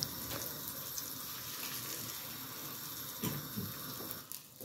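Butter sizzling steadily in a hot nonstick pan. About three seconds in, beaten eggs are poured in.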